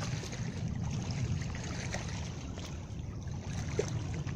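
Steady low rumble of wind on the microphone, with small waves lapping faintly at the water's edge.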